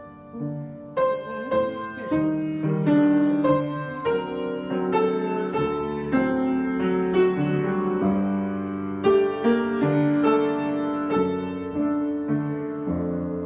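Improvised solo piano, chords and melody notes struck and left to ring, at a moderate, unhurried pace.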